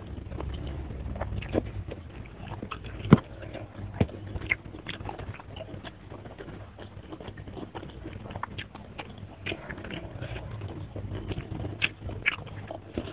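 Close-miked eating sounds: chewing and wet mouth clicks while fingers pull apart a pomfret and work it into rice with sambal, making soft crackles. Two sharp clicks about three and four seconds in stand out over a low steady hum.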